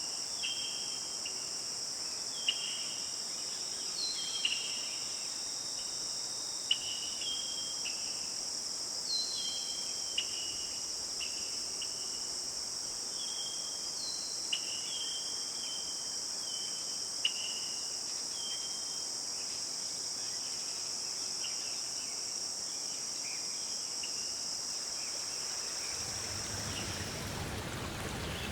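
A steady, high-pitched chorus of crickets, with many short, falling chirping calls repeating over it. Near the end the insects stop and rushing water fades in.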